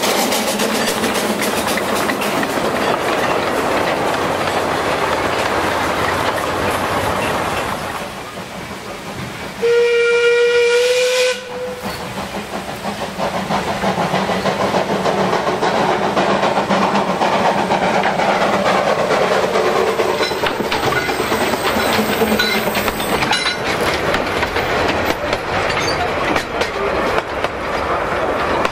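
Narrow-gauge steam trains running past: a small steam locomotive working a train, with the chuff and hiss of steam. About ten seconds in, a steam whistle blows once for under two seconds, the loudest sound, its pitch rising slightly. Then a train of open carriages rolls past.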